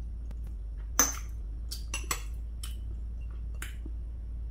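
Metal chopsticks and a spoon clinking against ceramic plates and bowls: a sharp clink about a second in, then about five lighter taps over the next few seconds.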